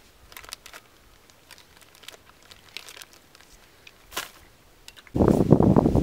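Faint scattered clicks of spoons and cups while eating, then about five seconds in a sudden loud crinkling rustle of a nylon-shelled sleeping bag being handled and stuffed while packing up.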